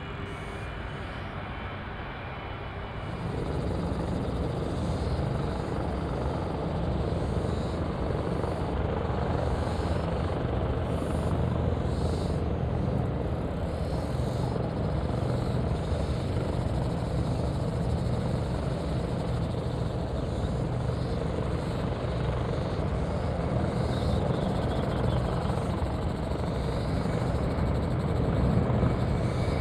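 Airbus A330 freighter's twin jet engines at takeoff thrust during its takeoff roll, a steady deep rumble heard from across the airfield. It comes in about three seconds in, louder than the fainter jet noise before it.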